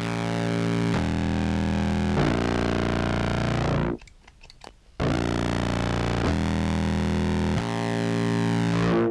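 Sampled contrabass clarinet played through a pedal chain of filter, fuzz and other effects: low, distorted sustained notes that change pitch every second or so. There are two phrases, with a break of about a second in the middle, and the sound cuts off abruptly at the end.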